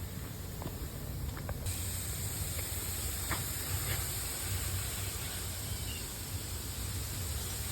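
Rain Bird lawn sprinkler heads spraying water with a steady hiss that comes on suddenly about a second and a half in as the next zone's valve opens.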